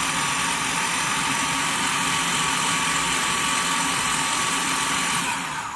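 Electric food processor running steadily, its blades puréeing a wet mixture of tomatoes, onions and spices. It is switched off near the end.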